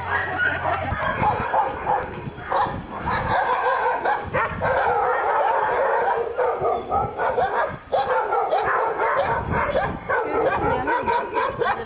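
Many shelter dogs in their kennels barking at once, a continuous overlapping chorus with no let-up.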